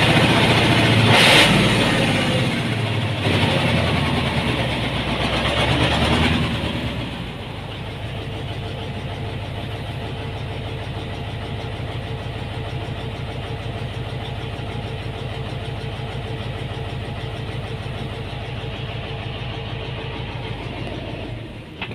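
Hino dump truck's diesel engine running, loud and dense for the first six seconds or so, then settling to a steady idle for the rest. A sharp clack comes about a second in.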